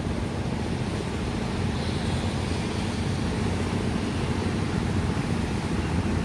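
Steady low vehicle rumble that grows slightly louder toward the end.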